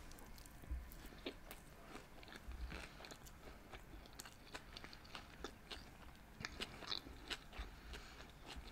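A person chewing a mouthful of sushi close to a microphone: faint, irregular small clicks and crunches of chewing.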